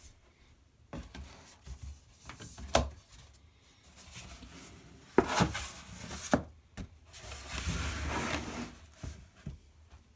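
Corrugated cardboard being folded and handled on a table: rustling and scraping with a few sharp knocks, then a longer scraping rub near the end.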